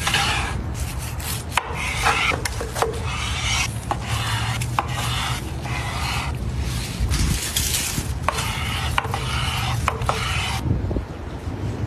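Large knife slicing through a grilled steak's charred crust on a cutting board: repeated rasping strokes with sharp taps of the blade on the board, stopping near the end.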